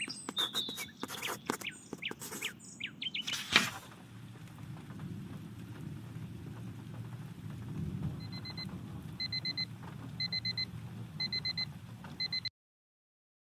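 Wood fire crackling with sharp pops and clicks and a few short bird chirps, then a steady low rumble. From about eight seconds in, a chirping bird call repeats about once a second. The sound cuts to silence near the end.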